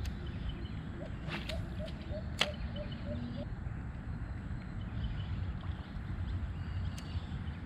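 Spinning rod and reel worked from a kayak: a few sharp clicks, two in the first few seconds and one near the end, over a low steady background. A run of about nine short, evenly spaced chirps sounds between one and three and a half seconds in.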